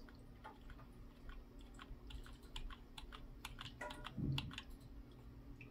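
Quiet, irregular clicking at a computer: light key and button presses, over a dozen scattered through, over a faint steady electrical hum.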